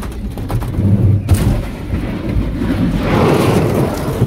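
Truck engine running hard, with a heavy rumble and rattle inside the cab. About a second in, a sudden rush of noise sets in and carries on.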